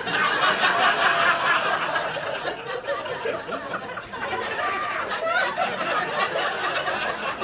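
Audience laughing at a punchline, breaking out at once and loudest in the first second or two, then carrying on more loosely.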